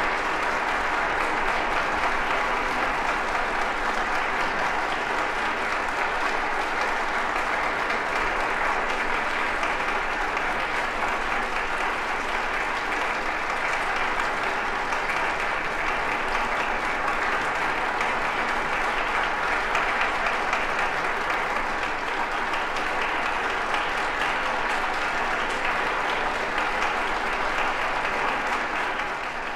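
Audience applauding steadily in a concert hall, with sustained clapping that fades out at the very end.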